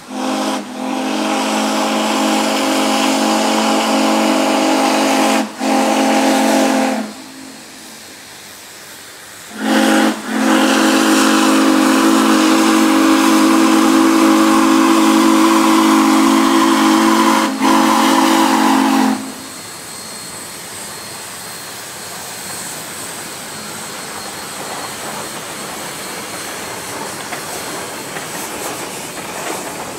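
Shay geared steam locomotive whistles blowing two long blasts, each sounding as a chord of several tones with a brief break near its end. After the second blast, about two-thirds of the way in, the locomotives run by with a steady hiss of steam.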